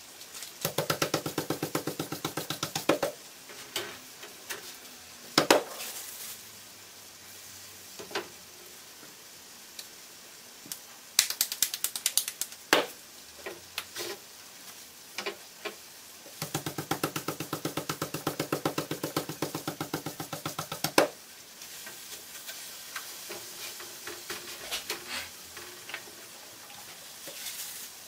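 Hands patting a ball of corn masa flat into a tortilla: rapid, even slaps in two runs of a few seconds, one near the start and one in the middle, with a few single sharp knocks between them.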